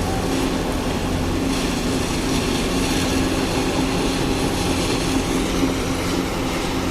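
Concrete mixer and pump machinery running steadily, a continuous mechanical hum with a rough, even rattle.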